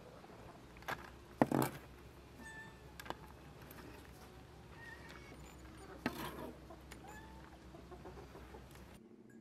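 Chickens clucking with short calls, over a few sharp knocks. The loudest knock comes about a second and a half in.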